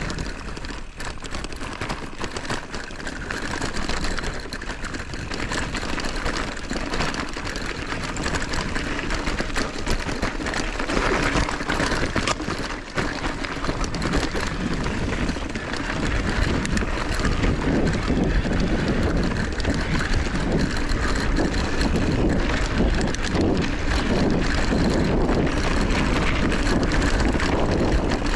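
Mountain bike ridden over a grassy, stony double track, heard from a handlebar-mounted camera: steady tyre rumble and crunch with frequent rattles and knocks, and wind buffeting the microphone. It gets louder about halfway through.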